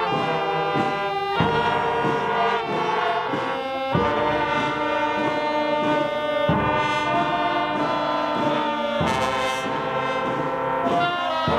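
A school brass band of trombones, trumpets and saxophones playing a hymn in several-part harmony, with held chords that change every second or two.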